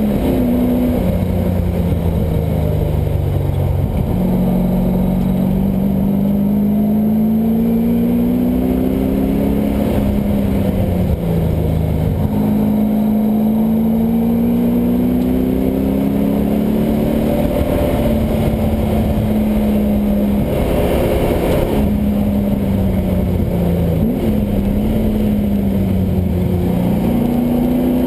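LS1 V8 engine in a swapped Mazda Miata running hard on track, its pitch climbing in long pulls and dropping back repeatedly through gear changes and braking. A short rush of noise comes about three quarters of the way in.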